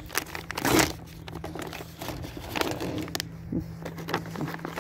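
Plastic candy bag crinkling as it is pulled open by hand, loudest less than a second in, then smaller crackles as it is worked open.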